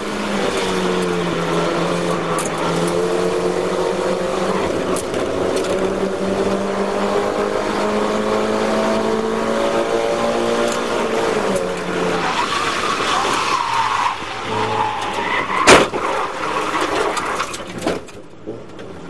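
Mazda MX-5 race car heard from inside its cabin, the engine running steadily at high revs. About twelve seconds in the engine note breaks up and tyres squeal under braking. A single loud bang about three-quarters of the way through is the impact with a spinning car ahead, and the engine then drops away as the car slows.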